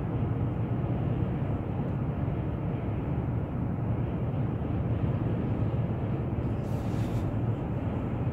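Steady low drone of a Nissan car driving at road speed, heard from inside the cabin: engine and tyre noise at an even level.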